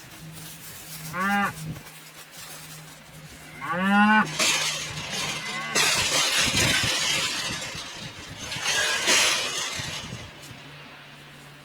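Cattle mooing twice, short calls about one and four seconds in, followed by two stretches of harsh clattering noise.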